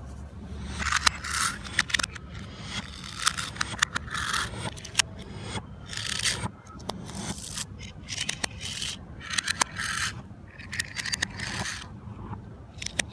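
Small die-cast toy cars being slid and set down on a stone ledge: a string of short scrapes and sharp clicks, roughly one a second.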